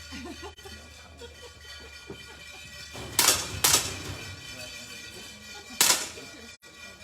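10 m air pistols being fired in a final: three sharp pops, two about half a second apart a little past three seconds in and a third near six seconds, over a steady low hum.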